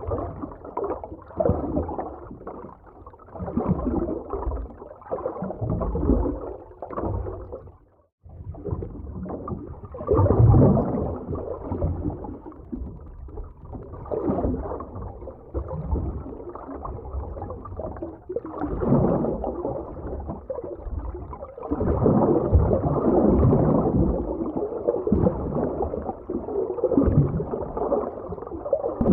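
Muffled underwater ambience: surging water noise with gurgling bubbles, swelling and ebbing every second or two. It cuts out for a moment about eight seconds in.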